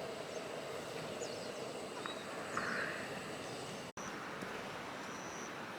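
Outdoor ambience with a bird calling: short, high, downward-sliding notes repeat about every second and a half, and after a brief dropout about four seconds in, a single high whistle note is held for about a second.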